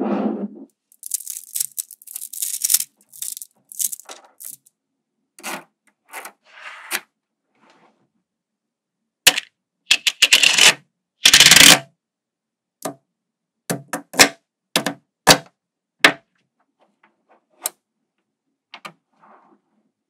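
Small gold magnetic balls clicking and clattering against one another as they are handled, laid out as a flat sheet and snapped together in layers. Mostly sharp single clicks, with a longer rattling run near the start and another about halfway through.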